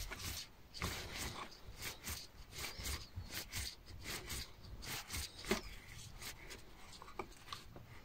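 Small Allen key turning a hex screw out of a car's plastic centre armrest: faint, irregular clicks and scraping of metal on metal and plastic as the key is repositioned and turned.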